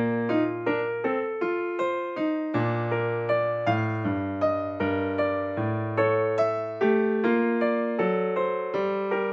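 Background music: a piano tune of evenly paced notes, each struck and fading.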